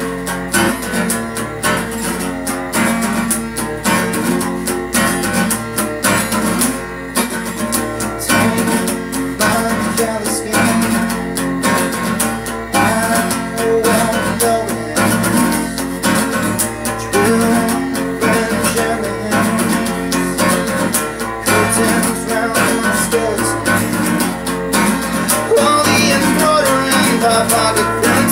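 Solo acoustic guitar playing an instrumental passage, with steady picked and strummed notes.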